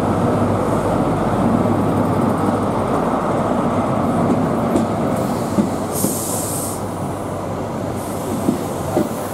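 Class 43 High Speed Train power car running past with its diesel engine, then the Mark 3 coaches rolling by. Their wheels click over the rail joints from about halfway through, and there is a brief high hiss about six seconds in.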